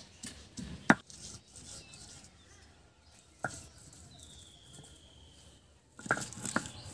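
Cookware being handled: a sharp knock about a second in, another about three and a half seconds in, then a run of clattering knocks near the end.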